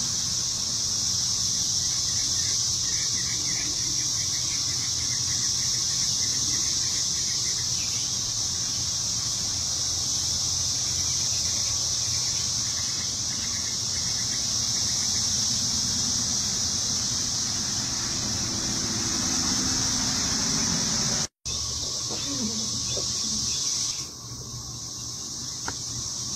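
Steady high-pitched drone of an insect chorus, with faint bird chirps in the first several seconds. About 21 seconds in the sound cuts out for a moment, and after about 24 seconds the drone is somewhat quieter.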